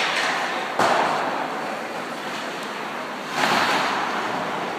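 Crowd cheering, swelling again a little over three seconds in, with a single sharp knock about a second in.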